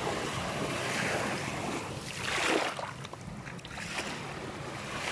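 Small waves breaking and washing up a sandy beach in slow surges, the loudest wash swelling and falling away about halfway through.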